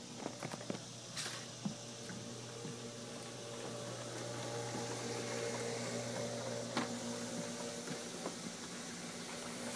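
Pool water lapping and gurgling around an inflatable raft as it moves, with a few light knocks early on and about seven seconds in, over a steady low hum.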